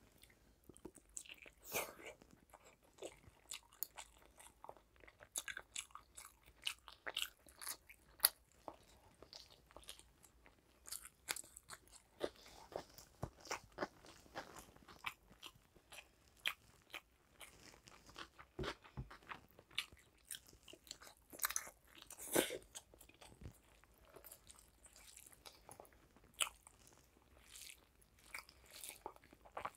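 Close-miked eating sounds of someone eating egg curry and rice by hand: chewing with irregular wet mouth clicks and smacks, and the squish of rice being mixed with curry.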